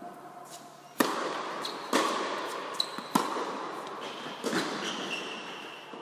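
Tennis ball being struck by rackets and bouncing on an indoor hard court during a rally. The loudest hit, the serve, comes about a second in, then further sharp hits and bounces follow about a second apart, each echoing in the hall. Short high shoe squeaks come in between.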